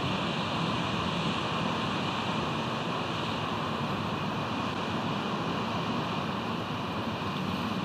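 Steady wash of wind and ocean surf, even and unbroken, with no eagle calls.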